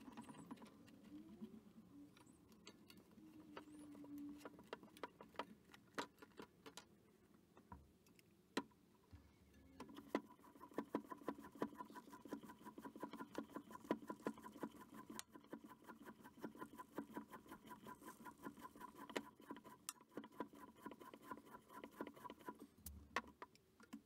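Scattered clicks as a Maxxis tubeless tyre is worked onto the rim. About ten seconds in, a Joe Blow Sport floor pump starts inflating it to seat the bead: a run of rapid clicks over a steady whine, which stops shortly before the end.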